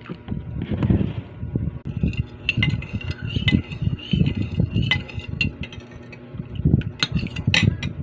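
Glassware and utensils clinking and knocking, some clinks leaving a brief ring, over irregular low thumping handling noise; a cluster of sharper clinks near the end.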